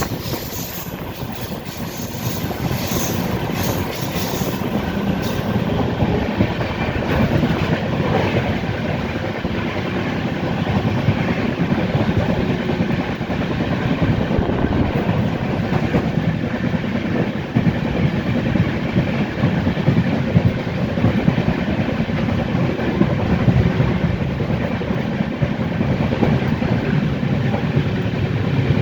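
Indian Railways LHB passenger coaches running on the track: a steady rumble with a constant stream of clacks from the wheels, slowly growing a little louder.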